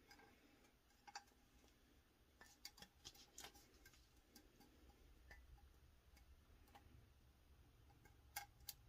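Near silence, with a few faint, scattered clicks and taps from craft materials being handled on a table: a small cluster about a third of the way through and two quick clicks near the end.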